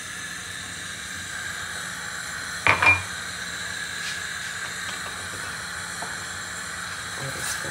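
Steady hiss from a lit gas stove burner under a steel pot of strawberries, sugar and water heating toward the boil. A short metal clink with a brief ring about three seconds in.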